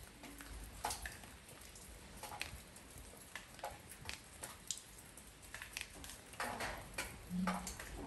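Rain falling on a porch: separate drops strike at irregular moments over a steady hiss of rain. A brief low tone sounds near the end.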